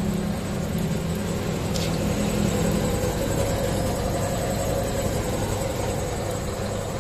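Sinmag bread slicer running empty, its electric motor driving the reciprocating blade frame with a steady hum and whir; it runs smoothly.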